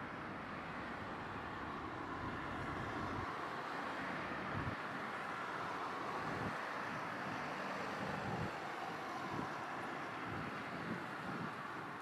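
Steady outdoor background hiss with low rumbles coming and going now and then; no bird calls.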